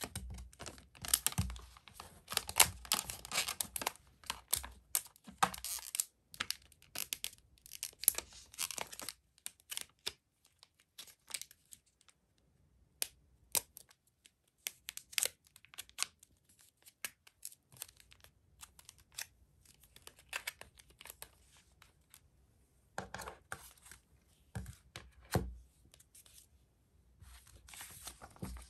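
Clear plastic sleeve crinkling and rustling as a cardboard-backed photo pack is slid into it and handled, with scattered taps of cardboard. The sound comes in irregular bursts, busiest at the start, with a short quiet spell in the middle.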